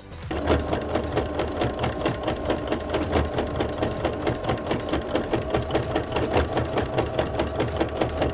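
Baby Lock sewing machine stitching fast with a ruffling foot attached, a rapid, even clatter of needle and foot mechanism over a motor hum, set to fold one pleat every 12 stitches. It starts up a moment in.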